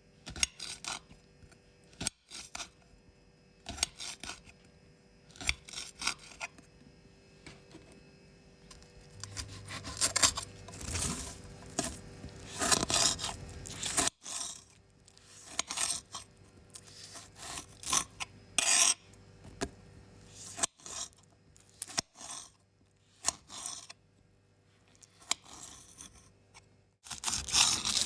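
Knife cutting vegetables on a cutting board: irregular sharp cuts and chops, with a busier run of quick strokes from about ten to fourteen seconds in.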